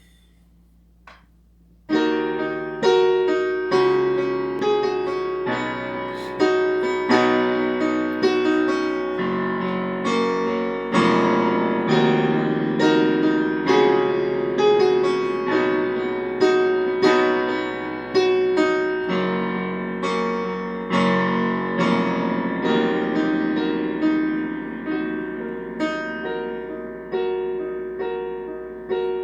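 Electronic keyboard played with a piano sound: chords and melody notes struck and left to ring, beginning about two seconds in after a short quiet.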